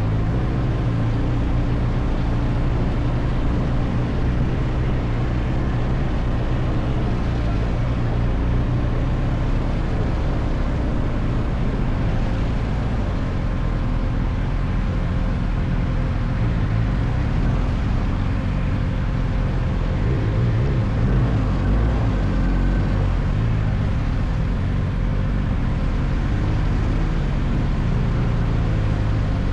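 Steady low rumble of a vehicle's engine and road noise while driving, unbroken throughout.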